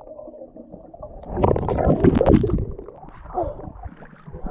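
Lake water sloshing and gurgling close to the microphone, rising about a second in and loudest for about a second and a half before it dies back.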